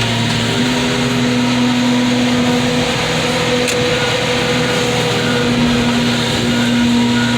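Heavy machinery engine running steadily under load, a constant loud hum whose pitch steps slightly a few times.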